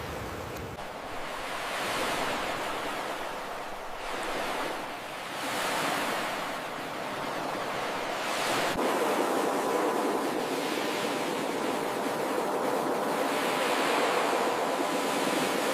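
Ocean surf: waves breaking and washing ashore, the rush rising and falling in swells, louder and steadier over the second half.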